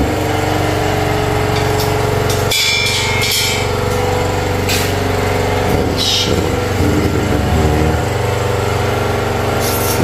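A steady mechanical hum, like a running engine or motor, with a few short hissing and knocking noises, including one about six seconds in.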